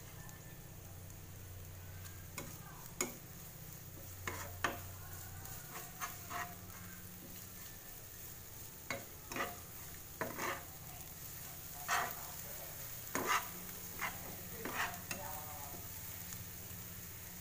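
Chopped garlic, chilies and scallions sizzling in hot oil in a nonstick frying pan while a spatula stirs them, scraping and tapping against the pan again and again. This is the sautéing of the aromatics for the seasoning.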